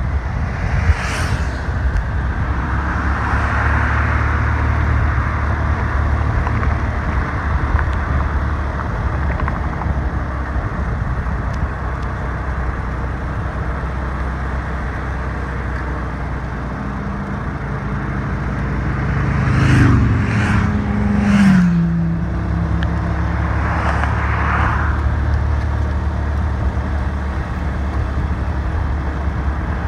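Engine of a motor vehicle running steadily at low speed, with road and wind noise. About twenty seconds in the engine note falls and rises again while a few sharp swishes are heard, and there are several passing whooshes.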